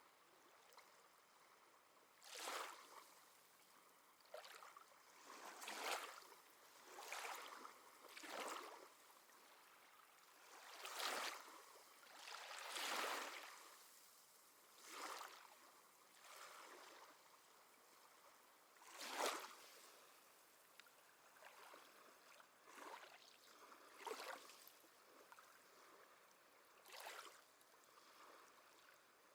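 Small sea waves lapping and splashing at the shore in short, irregular splashes every one to three seconds, with a soft hiss of water between them.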